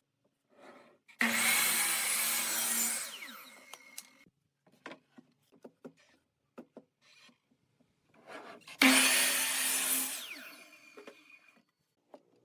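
A power saw cutting wood twice: each cut starts suddenly, runs about two seconds, then the blade winds down. Light knocks of wood being handled come between the cuts.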